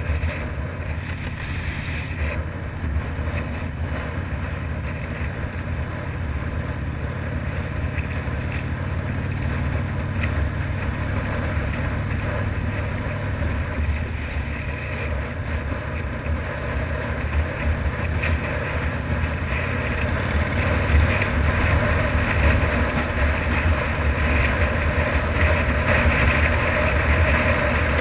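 Harley-Davidson FXRDI's V-twin engine running under way, with wind rushing over the microphone. It gets gradually louder through the second half.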